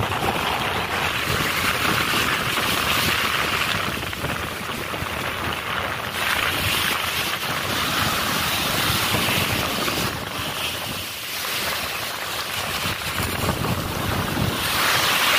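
Small waves breaking and washing up a sandy beach, swelling and easing several times, with wind buffeting the microphone.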